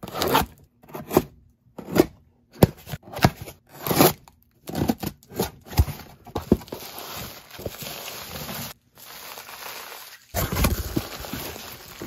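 Scissors slitting the packing tape on a cardboard box in a run of short, sharp rasps and tears, then the cardboard flaps being opened and rustled. Bubble wrap crinkles as it is handled, louder near the end.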